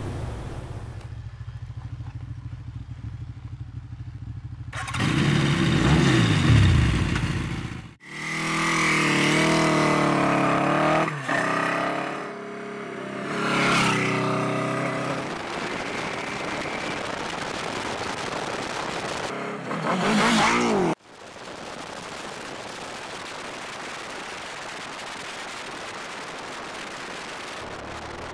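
Motorcycle engine running in several edited takes: a low steady idle, then loud revving and riding with the pitch falling, wavering and rising with the throttle, cut off abruptly about 21 seconds in. The last several seconds are a steady hiss.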